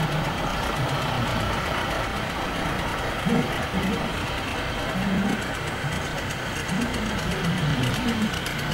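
Small narrow-gauge diesel locomotives running slowly, engine noise steady, with faint voices behind.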